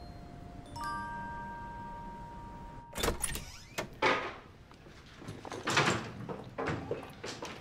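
A few held chime notes, then about three seconds in a wooden apartment door's lock clicks and the door is pulled open. Clunks and knocks follow as a wheeled suitcase is rolled out over the threshold, with footsteps.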